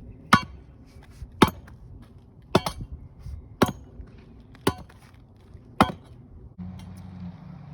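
Hand tamper pounding freshly poured bagged asphalt, six sharp thumps about a second apart. A steady low hum starts near the end.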